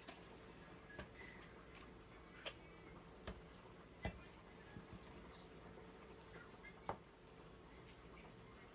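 Quiet, scattered light taps and knocks of a dough cutter on a stainless steel counter as a log of soft cookie dough is cut into pieces, the loudest a little after four seconds in, over a low steady hum.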